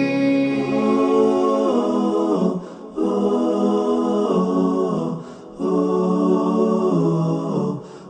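Wordless a cappella backing vocals in an Urdu naat: layered voices hold sustained chords that step from note to note. The phrases break off briefly about every two and a half seconds.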